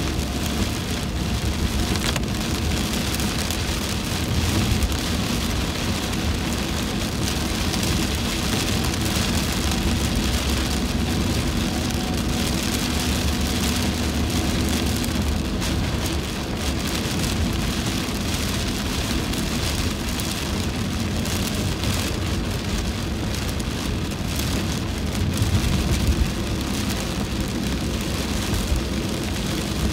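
Heavy rain pelting the roof and windshield of a moving car, heard from inside the cabin as a dense, steady hiss of drops. Underneath runs a steady low rumble of the car and wet road.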